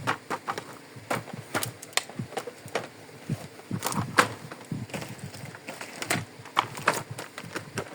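Small plastic toy kitchen pieces being handled, with irregular light clicks and taps, a few each second.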